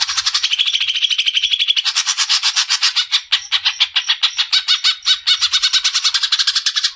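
Greater green leafbird (cucak ijo) singing a fast, unbroken run of sharp chattering notes, about ten a second.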